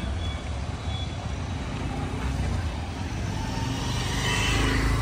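Busy street traffic: a steady low rumble of vehicle engines and road noise, getting slightly louder toward the end.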